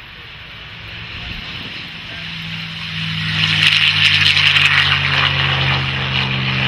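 P-51 Mustang's Packard Merlin V-12 at takeoff power during the take-off run and lift-off, growing steadily louder as it comes past. A steady engine drone builds about two seconds in, and a loud rasping propeller-and-exhaust note joins it from about three seconds in.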